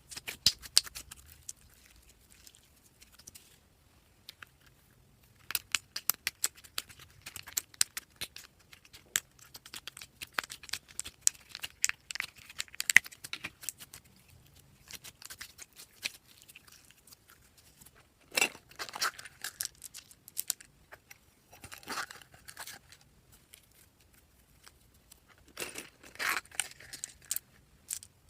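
Slime being mixed and squeezed by hand: sticky crackling and clicking pops in bursts of a few seconds, with short pauses between them.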